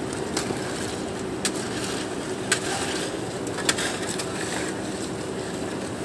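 Steady running hum of a concrete boom pump truck's engine and pump, with a few sharp taps and scrapes from shovels and hand tools working wet concrete on the slab.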